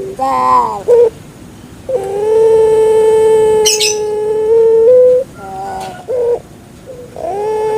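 Puter pelung dove (domestic Streptopelia risoria) cooing: a short coo, then one long, steady low note of about three seconds that steps up in pitch as it ends, then a few short notes and the start of another long note near the end.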